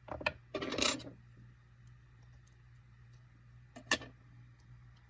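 Small metal parts and a screwdriver clinking on a hard surface while a phone is taken apart: a few clicks and a short clatter about a second in, then a single sharp click near four seconds.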